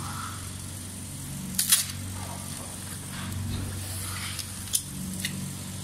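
A few short, sharp clicks and knocks as hub-motor scooter wheels with rubber tyres are handled, the loudest about a second and a half in and two more near the end, over a steady low hum.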